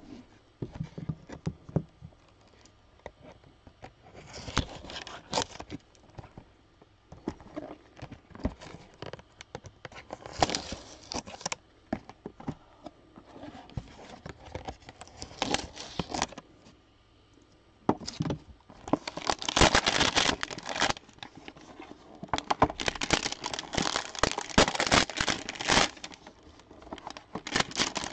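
Trading-card hanger box packaging being torn open and handled: irregular bursts of crinkling and tearing, separated by quieter pauses, growing busier in the second half.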